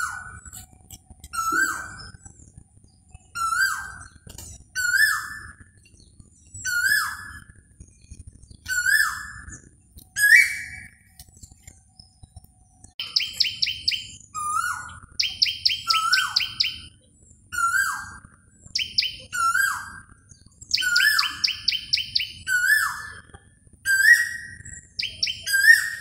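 Male Asian koel calling its repeated whistled "ko-el", one call every couple of seconds, each series climbing higher in pitch. About halfway through the series starts low again and climbs once more, while bursts of rapid, shrill trilled notes come between the calls until near the end.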